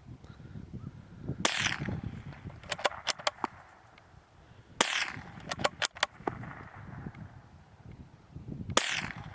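Norinco JW-15 .22 LR bolt-action rifle fired three times, a few seconds apart. After each of the first two shots comes a quick run of metallic clicks as the bolt is worked to chamber the next round.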